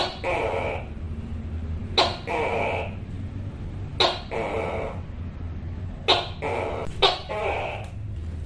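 Tokay gecko calling its loud 'to-kay' call five times, each call a sharp first syllable followed by a longer second note, repeated about every two seconds.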